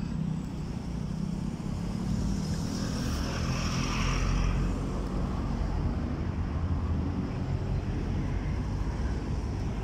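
Road traffic from a nearby city street: a steady hum of passing cars, with one vehicle going by louder about four seconds in.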